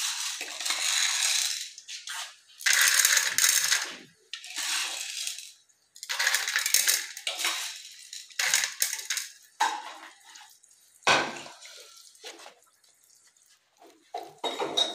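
Dry popcorn kernels tipped into a steel pot in several batches, rattling and clattering against the metal, with shorter scatters later and one sharp clink about eleven seconds in.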